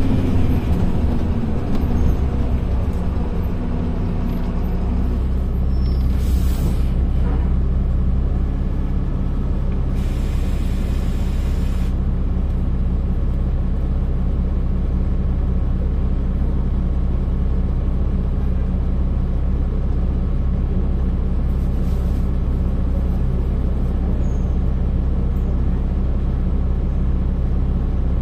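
Volvo D10A-285 six-cylinder diesel of a Volvo Super Olympian double-decker bus, heard from the upper deck, winding down as the bus comes to a stop, then idling with a steady low hum. Short hisses of compressed air from the bus's air brake system come about six seconds in and again for about two seconds around ten seconds in.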